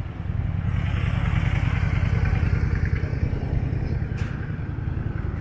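A motor vehicle passing close by: its engine and tyre noise swell about a third of a second in, hold, then slowly fade.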